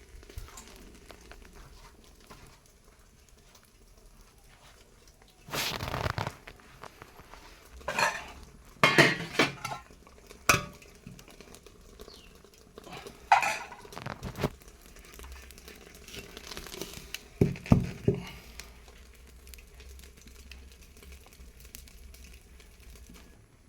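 Cookware and utensils clattering and clinking in short scattered bursts, several loud knocks and scrapes among them, over a low background.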